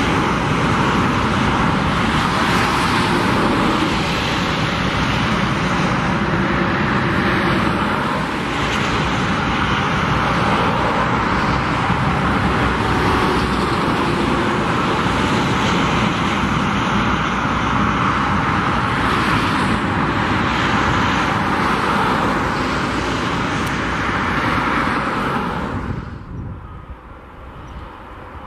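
Boeing 767-300F's jet engines running as the aircraft taxis, a loud steady rush of engine noise that drops off sharply near the end.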